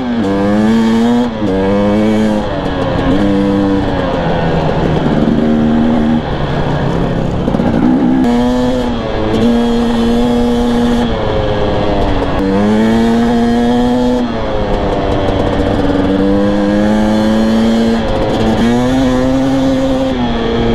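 Husqvarna TE250i two-stroke dirt bike engine running under way, its pitch climbing and dropping again and again as the throttle is worked and gears change.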